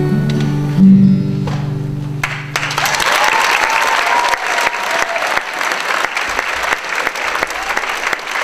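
Acoustic guitar playing its final notes and letting the last chord ring out. About two and a half seconds in, an audience starts applauding, with a few voices cheering.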